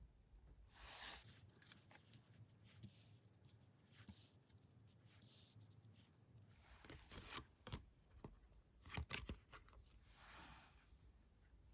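Faint handling of tarot cards: soft swishes of cards sliding, with a cluster of light taps and clicks as cards are laid down about two-thirds of the way in.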